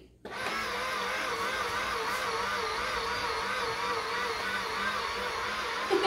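Battery-powered toy bulldozer's electric motor and gearbox running steadily, a whine that wavers slightly in pitch, under the load of pushing a box holding a 35-lb toddler. It starts just after a brief gap near the beginning.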